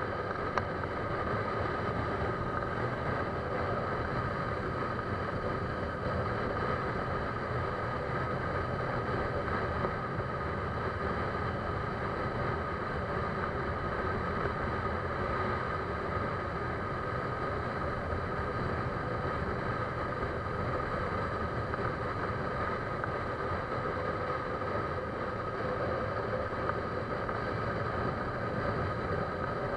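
A steady mechanical drone with a few constant tones in it, unchanging throughout.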